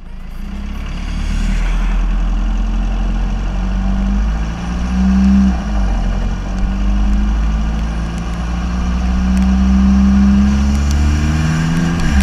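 Audi Q5 2.0 TDI four-cylinder diesel driving on a wet road, heard from a camera at the front grille: heavy wind rumble on the microphone with tyre noise and the engine note climbing steadily, dipping once near the end at a gear change.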